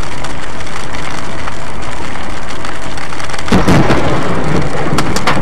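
Heavy rain on a car with a steady hiss, heard from inside through a dashcam. About three and a half seconds in, a close thunderclap cracks and rumbles, followed by a few sharp crackles.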